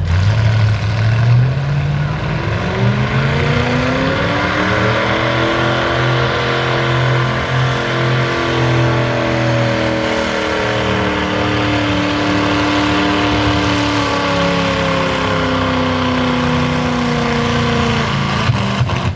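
A pulling truck's engine at full throttle, dragging a weight-transfer sled. The revs climb over the first few seconds, then hold high, the pitch sagging slowly as the sled's load builds, and the engine lets off at the very end.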